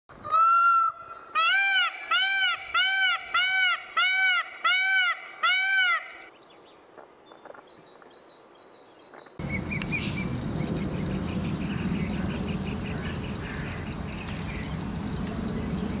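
Indian peafowl (peacock) calling: one long, loud note, then a quick run of about nine short honking notes, each rising and falling in pitch, about two a second, stopping about six seconds in. About nine seconds in, a steady outdoor background hiss with a low rumble starts suddenly.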